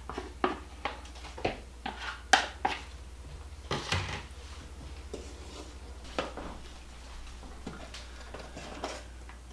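Wooden spoon knocking and scraping whipped topping out of a plastic tub into a stainless steel mixing bowl: a quick run of light knocks, a louder clatter about four seconds in as the tub is set down on the counter, then softer, sparser knocks of the spoon folding the topping in the bowl.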